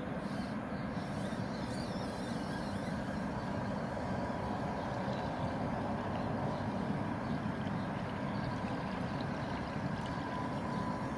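A distant engine running steadily: a low rumble with a faint, even hum over it.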